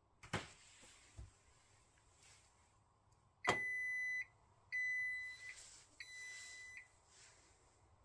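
Drucker Diagnostics Horizon 24-AH centrifuge sounding its end-of-cycle alert: a sharp click about three and a half seconds in, then three steady, high-pitched electronic beeps about a second apart. A couple of faint clicks come earlier.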